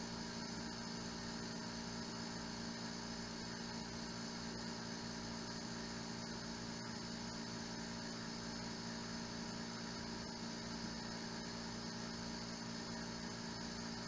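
Small electric vacuum pump running with a steady hum as it draws a vacuum on the drums.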